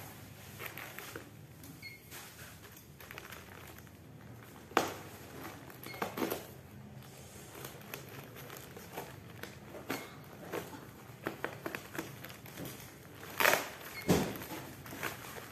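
Plastic packaging crinkling and rustling as a taped parcel is handled and turned over, with scattered small crackles and a few louder rustles about five seconds in and again near the end.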